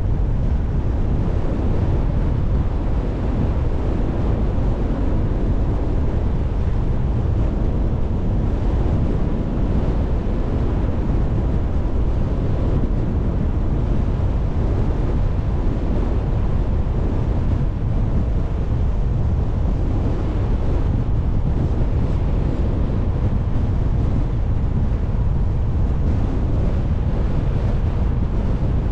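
Steady low rumble of a car driving along a road, with wind buffeting the microphone.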